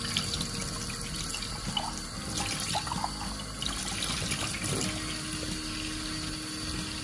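Kitchen tap running steadily, the stream splashing over a ceramic mug held under it and into a stainless steel sink.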